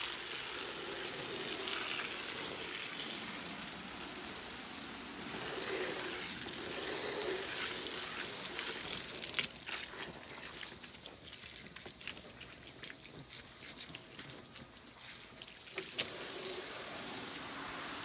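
Water spraying onto wet deck boards in a steady hiss. It stops about nine seconds in, leaving scattered drips and small knocks, and starts again near the end.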